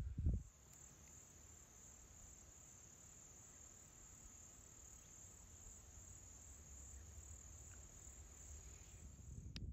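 Insects trilling in one steady, high-pitched drone that cuts off suddenly near the end. A low thump comes at the very start.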